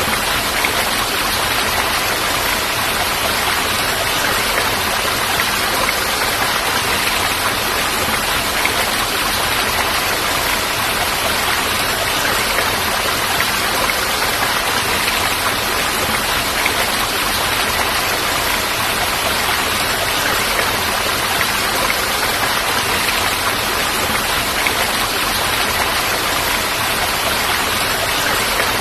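Falling water rushing steadily and evenly, with no breaks or changes.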